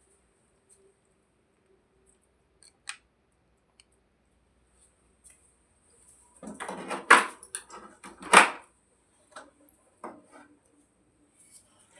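Handling noises: a few faint clicks, then two loud bursts of rustling and clattering about six and a half and eight seconds in, followed by a few small knocks.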